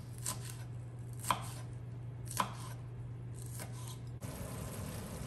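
Kitchen knife chopping on a cutting board: about six separate, unevenly spaced strikes, the two loudest a little over a second apart.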